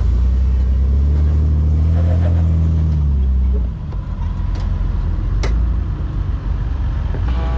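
Off-road vehicle's engine running, its pitch swelling slightly and then easing, dropping to a lower, rougher rumble about three and a half seconds in. Two sharp clicks follow a little later.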